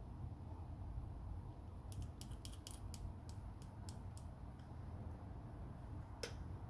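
A quick run of about ten light, sharp clicks over roughly two seconds, then a single click near the end: small tools and phone parts being handled during an iPhone X repair. A steady low hum lies underneath.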